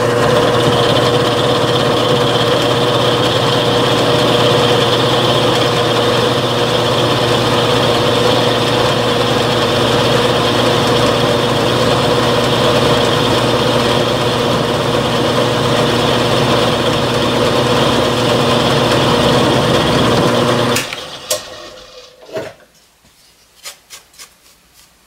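Milling machine running with a freshly sharpened half-inch end mill taking about a 20-thou cut across a metal block: a steady machining noise with a constant hum. It dies away about 21 seconds in, leaving a few light clicks.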